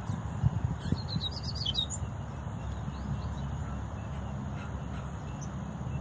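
Double-collared seedeater singing a quick twittering phrase about a second long, followed by a few faint notes. A steady low rumble lies underneath.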